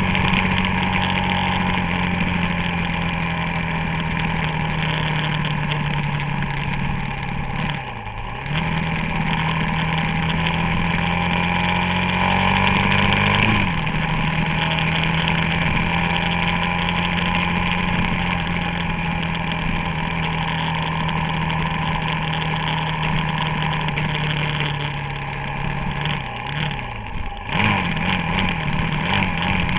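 Suzuki DR-Z400SM's single-cylinder four-stroke engine running at a steady cruise. About halfway it climbs in pitch for several seconds under throttle, then drops sharply at a gear change, and near the end it wavers with quick throttle changes.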